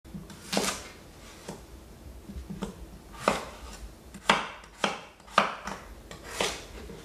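Chef's knife cutting red potatoes into small pieces on a wooden cutting board: a string of knocks as the blade goes through and strikes the board, sparse at first, then louder and closer together in the second half.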